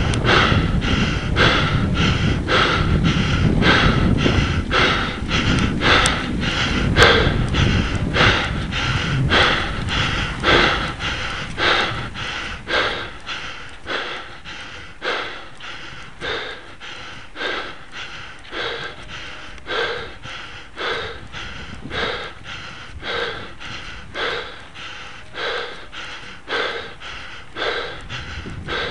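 A cyclist breathing hard and rhythmically while climbing a steep hill, gasping out breath after breath at an even pace: he is labouring near his limit. Wind rumbles on the microphone for the first twelve seconds or so, then drops away.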